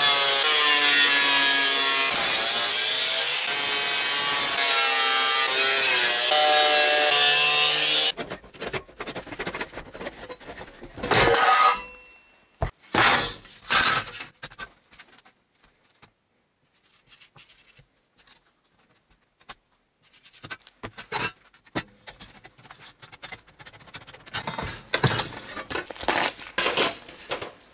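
Angle grinder with a cutting disc cutting into a scooter's sheet-metal side panel, a steady loud whine that wavers slightly in pitch, cutting off after about eight seconds. After it, scattered scrapes, rubbing and knocks of sheet metal being handled, with one loud ringing clang a few seconds later.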